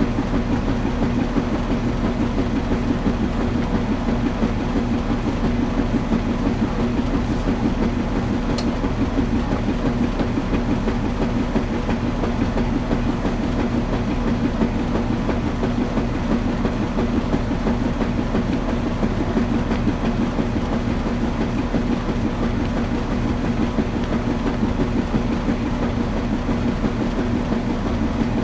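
Washing machine running: a steady, even hum with a fast rhythmic churning over it, unchanging throughout.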